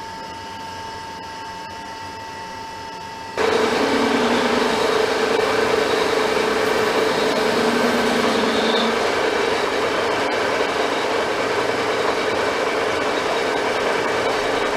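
Metal lathe running steadily with a strong, even hum. It cuts in suddenly about three and a half seconds in, after a quieter steady hum.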